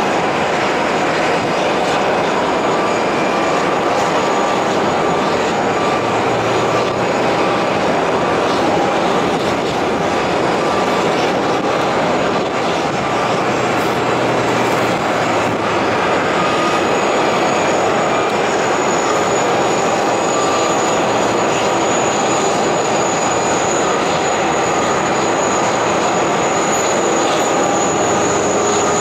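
Steady loud turbine roar and whine of aircraft on an airport apron, with a high whine that grows louder over the last ten seconds as the towed Airbus A380 draws near.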